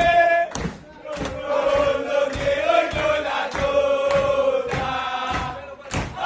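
A group of men chanting a football celebration song in unison, with a beat of claps and stamps about twice a second.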